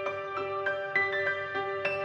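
Background music: a light instrumental piece of struck, ringing notes, about three or four a second.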